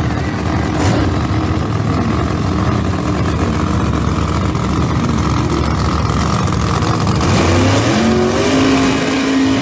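Drag race car engines running loud and rough, with one engine revving up in pitch about eight seconds in.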